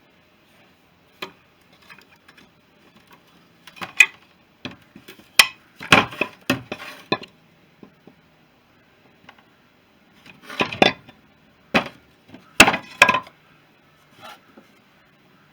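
Irregular sharp clinks and knocks of metal parts and tools being handled and set down, in two busy clusters with quieter gaps between them.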